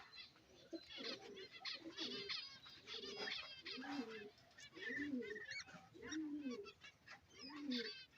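Budgerigars chattering in an aviary, with a lower arched call repeated about once a second underneath from about halfway through.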